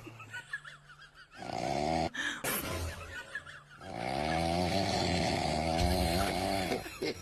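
Snoring: a short snore about a second and a half in, then after a pause a long drawn-out snore that stops near the end.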